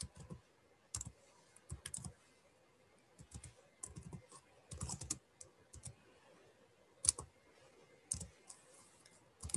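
Typing on a computer keyboard: faint, irregular keystrokes in short runs.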